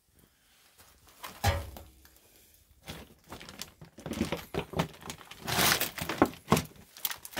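Footsteps crunching through debris and crinkling plastic trash on a littered basement floor: irregular cracks, crinkles and thuds that grow busier about four seconds in.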